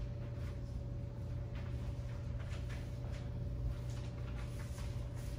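Room tone of a meeting hall: a steady low hum with a faint steady tone, and scattered soft rustles and clicks.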